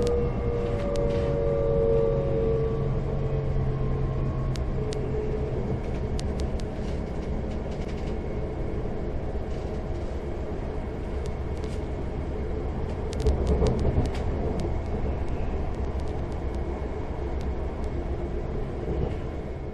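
Passenger train running along the rails, heard from on board as a steady rumble with scattered clicks from the wheels. A whining tone fades out over the first few seconds, and the sound swells briefly about 13 seconds in.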